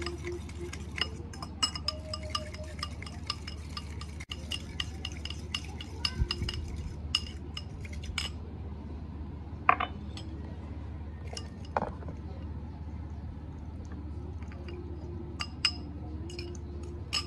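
Metal fork clinking against a ceramic bowl while stirring a thin dipping sauce: quick light clinks for the first eight seconds or so, then only a few scattered ones.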